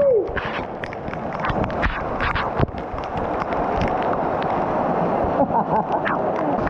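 Waterfall pouring and splashing directly onto a close-held action camera: a steady loud rush of falling water with many sharp ticks as drops strike the camera.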